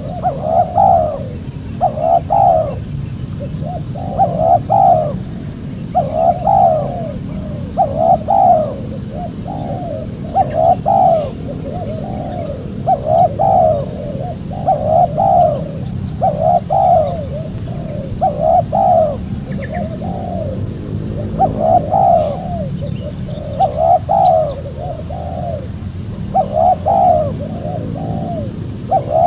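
Spotted dove cooing over and over, a short rolling coo phrase roughly every second, over a steady low background rumble.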